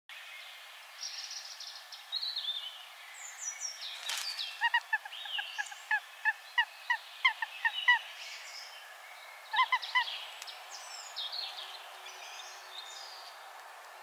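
Eurasian sparrowhawk calling a rapid series of sharp kek notes, about four a second for some three seconds, then a short burst of three more near ten seconds. Small songbirds sing in the background.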